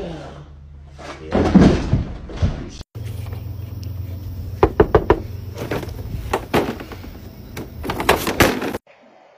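A door rattled and banged by its round knob, with a string of sharp knocks, several close together. Before that, about a second and a half in, comes a loud thump and commotion.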